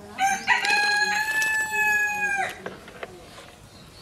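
A rooster crowing once: a few short broken notes, then one long held note of about two seconds that drops away at the end.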